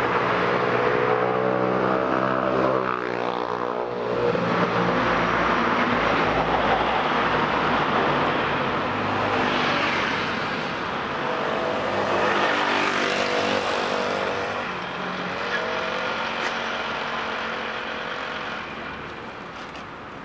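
Cars driving past on a street, one after another; the engine note of one drops in pitch as it goes by about three seconds in, and more pass later.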